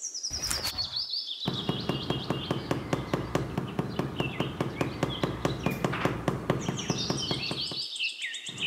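Outdoor nature ambience of birds chirping: short falling chirps come in bursts, thickest near the end, over a fast, even ticking and a steady background hum.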